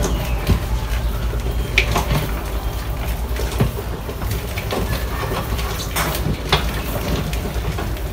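A crowd of mice scrabbling and clambering over each other and a glass box, with scattered clicks and scratches of claws on glass and plastic over a steady low rumble.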